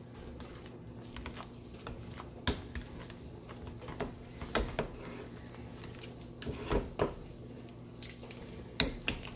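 Wire potato masher working mashed potatoes in a stainless steel pan, with irregular sharp clinks where the masher knocks the pan, over a steady low hum.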